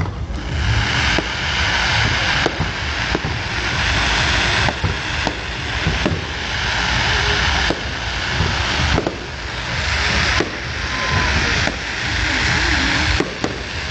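Aerial fireworks going off: sharp bangs every second or so, each followed by a dense crackling hiss as the shells burst into glittering stars.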